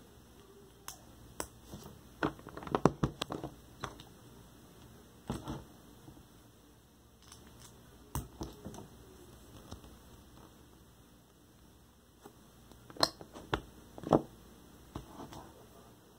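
Plastic Lego bricks being handled and pressed together on a tabletop: scattered small clicks and taps, with a flurry of them a few seconds in and a few sharper clicks near the end.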